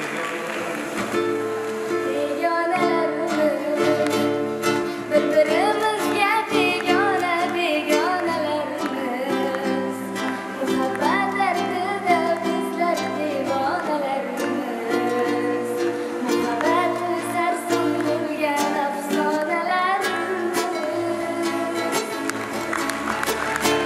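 Live song performance: acoustic guitars and backing band under steady held chords, with a gliding, ornamented vocal melody sung over them.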